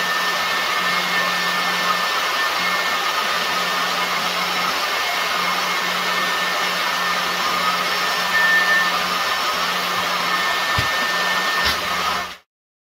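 Steel-cutting torch running with a steady hiss as it cuts through steel plate, stopping abruptly near the end.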